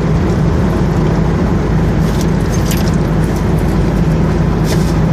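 Car driving at highway speed: a steady low engine and tyre drone with road noise, and a few faint light rattles.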